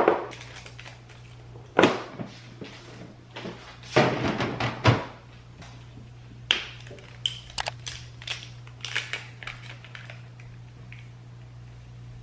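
A series of knocks and thuds, like doors or objects being handled and set down: the heaviest in the first five seconds, lighter clicks and taps after, over a steady low hum.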